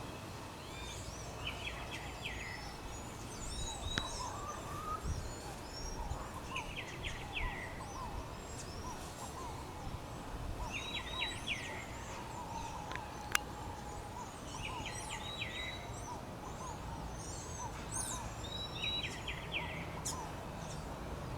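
Several birds calling. One repeats a short call of several quick notes about every four seconds while others chirp higher and more often, over a faint low rumble, with two sharp clicks along the way.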